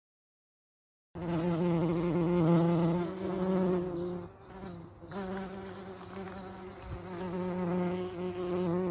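Cartoon bumblebee buzzing: a steady low buzz that wavers in pitch as the bee flies about. It starts about a second in and grows quieter for a moment midway before swelling again.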